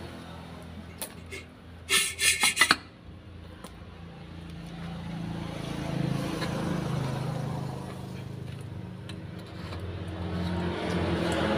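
An engine running with a steady low hum, swelling twice, around six and again around ten seconds in. About two seconds in, a brief rapid burst of sharp clicks.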